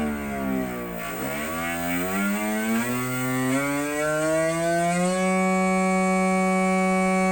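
An e-bike's electronic engine-sound speaker playing a simulated big-bike motorcycle engine. The pitch drops for about a second, then climbs in several steps like gear changes, and holds one steady tone for the last couple of seconds.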